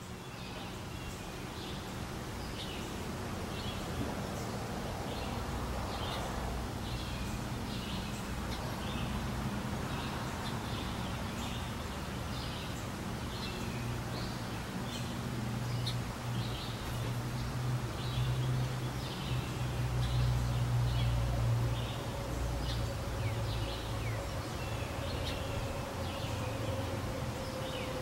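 Small birds chirping outdoors: short, high chirps about once or twice a second, over a steady low buzzing hum that swells louder around the middle.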